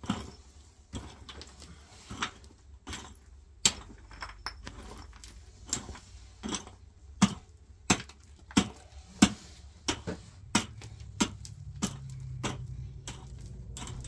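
Metal head of a long-handled pick striking dry, stony ground again and again, each blow a sharp crunch and clink of stones; the strokes come irregularly at first, then settle into about one every two-thirds of a second.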